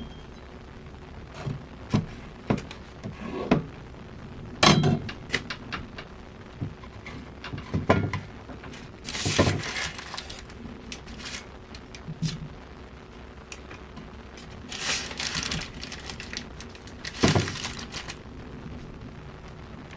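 Food-preparation handling sounds: scattered knocks and taps of things set down and picked up, with a few longer scraping or crunching rustles.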